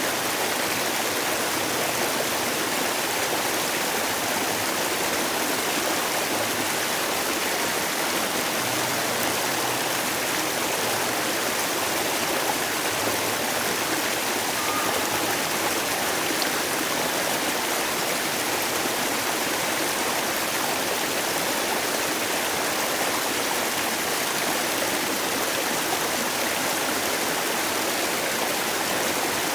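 Mountain valley stream, water rushing in a steady, unbroken wash.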